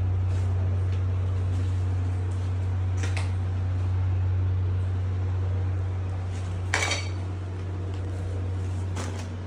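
A steady low hum with faint clinks of dishes, one sharper and louder clink about two-thirds of the way through.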